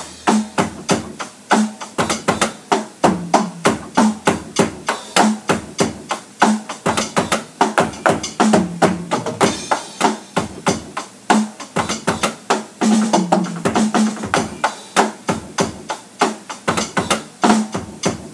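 A drum groove played on an electronic drum kit, a quick, steady stream of stick hits throughout.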